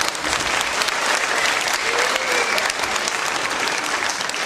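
Theatre audience applauding, a dense steady clatter of many hands clapping.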